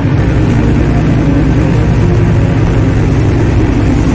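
Interceptor 48 pilot boat running at speed: a steady, loud engine drone mixed with wind and water noise.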